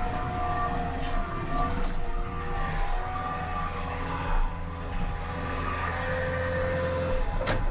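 Bobcat skid steer's diesel engine running steadily as the machine pushes dirt, with held whining tones over the engine note and a sharp clack near the end.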